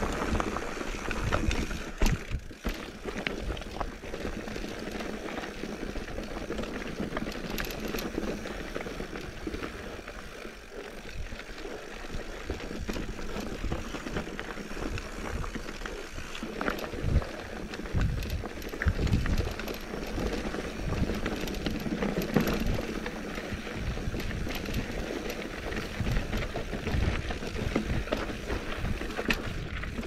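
Mountain bike rolling down rocky dirt singletrack: tyres running over dirt and loose stones in a steady rushing noise, with low thumps as the wheels hit rocks, several in a row about two-thirds of the way through and again near the end.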